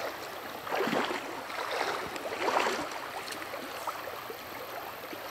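Shallow, rocky river running steadily over a riffle, with two brief splashes about one and two and a half seconds in.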